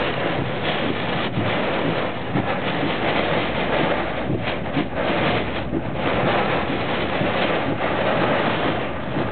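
Hurricane-force wind and heavy rain lashing a car driving through a hurricane's eyewall, a dense, steady rush with small gusty swells.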